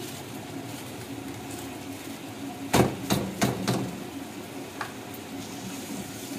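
A cooking spoon knocking against a metal pan about four times in quick succession about three seconds in, then once more, over a steady low hum.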